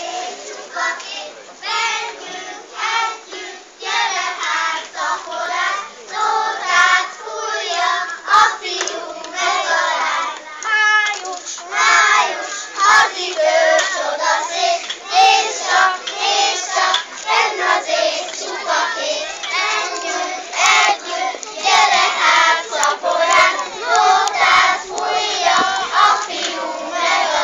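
A group of young kindergarten children singing together, with occasional sharp claps.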